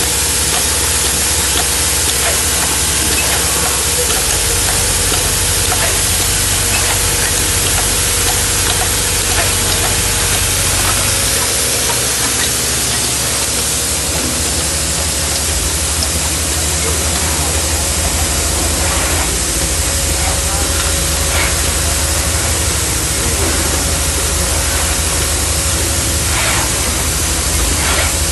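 Automatic odd-form insertion machine running, heard as a steady loud hiss of machine and compressed-air noise with faint, scattered clicks as its insertion heads place parts.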